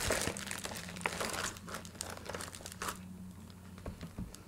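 Plastic metallic bubble mailer crinkling as it is handled. The crinkling is busy for about the first three seconds, then dies down to a few faint rustles.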